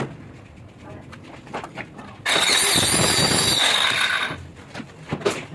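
A power tool runs with a high, steady whine for about two seconds, starting a little after two seconds in. Light knocks and clatter come before and after it.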